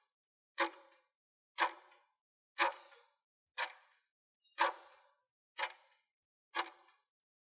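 Countdown timer sound effect ticking once a second, marking off the seconds of the countdown. Each tick is a sharp click with a short ringing tail, seven in all.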